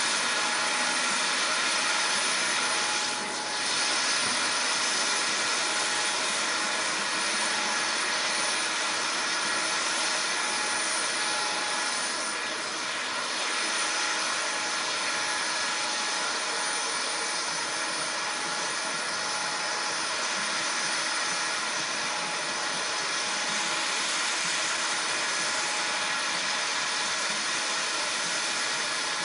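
Jet engines of a Lockheed C-5M Super Galaxy, its four General Electric CF6-80C2 (F138) turbofans, running steadily: a rushing noise with a high whine, dipping briefly twice.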